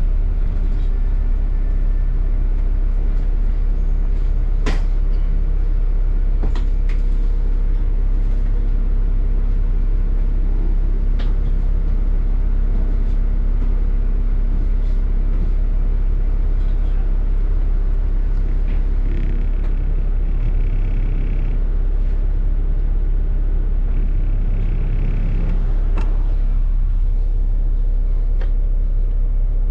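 Inside a moving double-decker bus: the steady low rumble of the bus running, with a constant hum. A few sharp clicks and rattles break through now and then.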